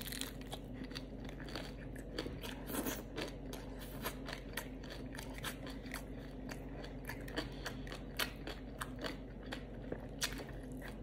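A mouthful of shrimp taco in a crisp-fried low-carb tortilla shell being chewed: irregular crunches, with a few louder ones about three seconds in and again near the end.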